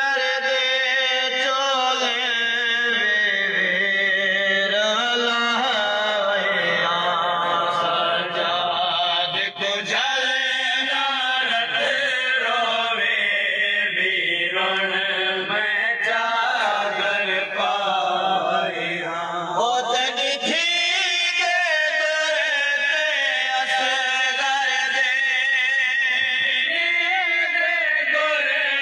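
A group of men chanting a noha, a Shia lament in Urdu, together in unison, led by a reciter on a microphone, the melody rising and falling in long unbroken phrases.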